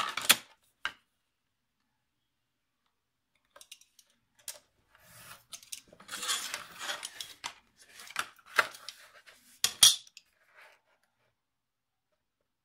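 Craft knife cutting paper along a metal ruler on a cutting mat: a few light ticks, then a scraping stretch of two or three seconds about five seconds in as the blade draws through the paper, followed by two sharp clacks as the metal ruler is handled.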